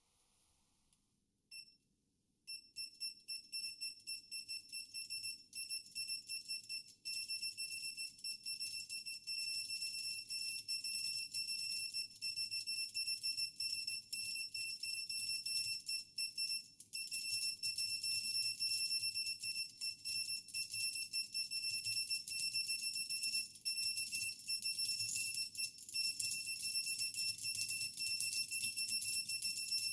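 Buzzer built into an XW60 keyboard PCB beeping under fast typing on Alps SKCM Salmon switches. A high, steady, shrill tone is chopped into rapid beeps over the thud of the keys. It starts about two seconds in, with one short beep just before.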